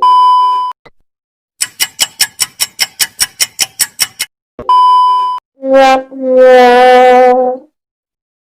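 A string of stock meme sound effects: a 1 kHz censor beep, then a rapid run of about sixteen pitched taps, a second censor beep, and a short then a long brassy horn blast.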